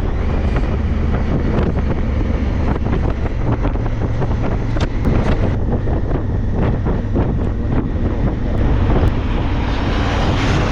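Heavy wind buffeting the microphone on a moving enduro motorcycle, with the engine running underneath as a steady low drone.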